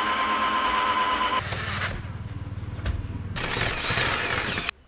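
Cordless drill spinning down the pop-up camper's scissor stabilizer jacks, in several short cuts: first a steady whine, then a lower rattling run, then a whine that rises and falls in pitch before cutting off abruptly near the end.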